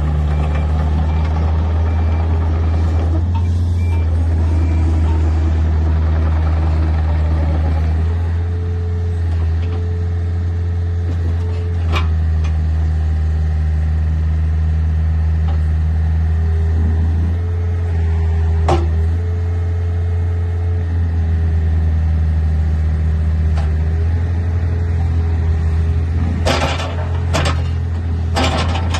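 2008 Case CX50B mini excavator's diesel engine running steadily with a low hum and a steady hydraulic-type whine. There are a few short beeps near the start, two sharp clicks, and several brief noisy bursts near the end.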